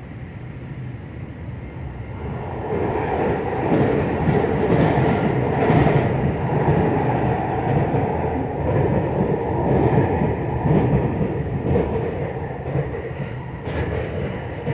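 JR West 225 series 0-bantai electric train, with a Toyo Denki IGBT inverter, running on the line. Its rumble and rail noise grow louder about two seconds in, with a few clicks from the wheels.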